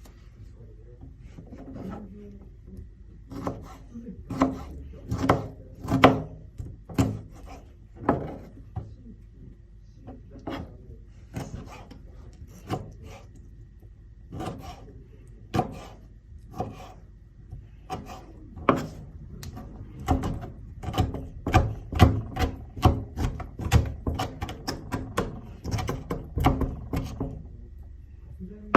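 A small kitchen knife cutting an apple on a cutting board: irregular knocks of the blade against the board with some scraping, coming in quick runs of chopping in the last third.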